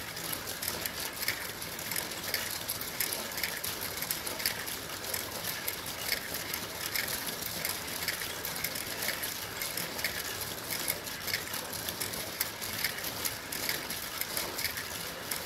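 Marbles rolling along the clear plastic rails of a Gravitrax marble run and clattering over the track pieces: a steady rattle made of many small clicks.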